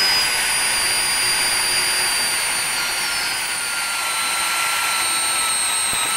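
Electric hand drill running steadily as it drills out the center hole in the end of a small engine's crankshaft, its whine sagging slightly in pitch under the load of the cut, then rising again near the end as the load eases.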